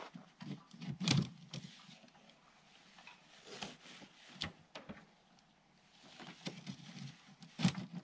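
Tent fabric and straps being handled and fastened to a van: scattered rustles, clicks and knocks, the loudest about a second in and again near the end.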